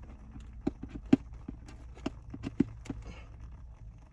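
Irregular small clicks and ticks of a sticker and tape being peeled by hand off a box, the sharpest about a second in, over a low steady hum.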